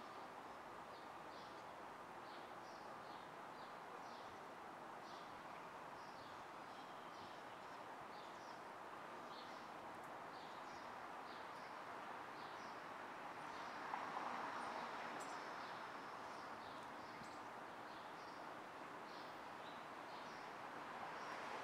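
Distant city street ambience: a steady hum of traffic with birds chirping over it in short, repeated calls. About two-thirds of the way through, a vehicle passes and the traffic noise swells briefly.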